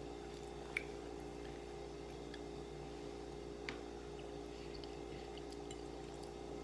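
Quiet eating: chewing with a couple of small wet mouth clicks, about a second in and midway, over a steady background hum.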